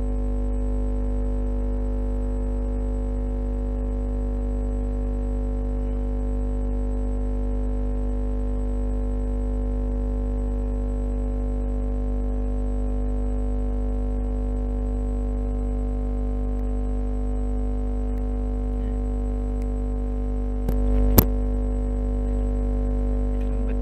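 A steady, unchanging drone of several held pitches with a heavy low end, and one sharp click about 21 seconds in.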